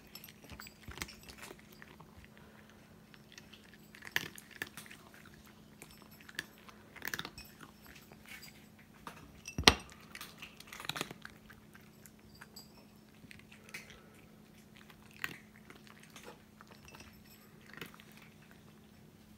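Cats crunching dry kibble from small ceramic plates, with scattered crunches and clicks. One sharp click about ten seconds in is the loudest sound. A faint steady hum runs underneath.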